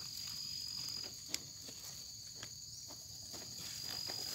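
Insects trilling steadily in two high overlapping tones, with a few faint ticks and rustles of dry grass stems; one sharper tick comes about a second and a half in.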